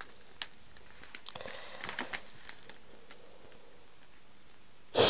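Cat nibbling at a rose bouquet wrapped in cellophane: a run of small crinkles and crunches over the first few seconds, then quiet, and a short loud burst of noise right at the end.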